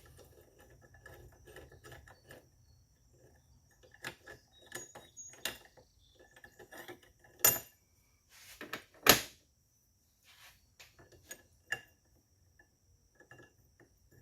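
Metal parts and tools being handled and fitted together, with light clinks and rattles and two louder sharp metal knocks about halfway through.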